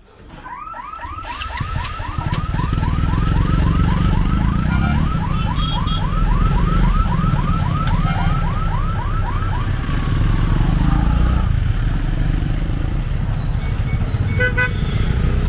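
An electronic warning siren chirps rapidly, about three rising chirps a second, for the first ten seconds or so, as the level-crossing boom barrier lifts. Under it, motorcycle and car engines run as traffic moves off over the crossing, with short horn toots near the end.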